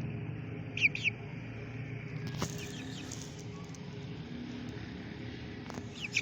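Young chickens peeping: two short high chirps about a second in and a few more near the end, over a steady low hum.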